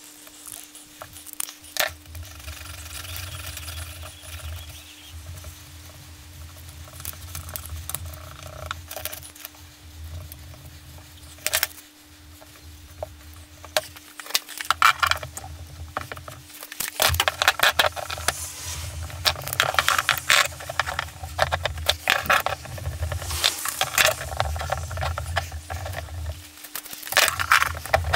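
Small hand work on a bench: epoxy being squeezed out and scraped together, then metal F-clamps clattering and clicking as they are slid and tightened onto a glued wooden handle, the clatter densest over the last half. A low hum comes and goes underneath.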